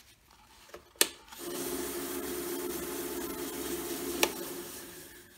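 A Jet 1015 mini wood lathe switched on with a click, running with a steady hum while a paper towel wet with denatured alcohol rubs with a hiss on the spinning pen blank, then switched off with a second click and winding down.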